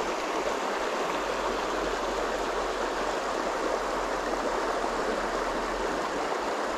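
Shallow river running over a stony bed through riffles: a steady, even rush of water.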